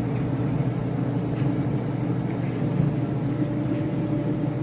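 Whirlpool clothes dryer running with its drum turning on freshly replaced roller bearings and a new belt: a steady, even hum and rumble with no knocks, during a test run before the panels go back on.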